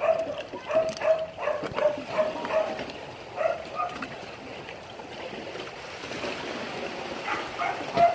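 A dog barking in short, high yips, about two to three a second for the first few seconds, then a few more near the end, the last one the loudest. Scattered sharp knocks and slaps sound under it.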